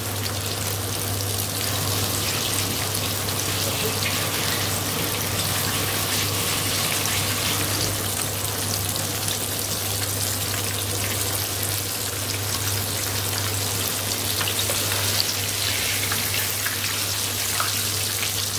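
Flour-coated chicken leg piece deep-frying in hot oil: a steady sizzle with many small crackling pops. A steady low hum runs underneath.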